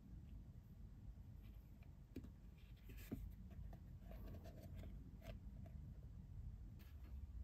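Faint small scrapes and taps of a wooden toothpick turning candy dough balls in a thin plastic tray, with a sharper click about three seconds in.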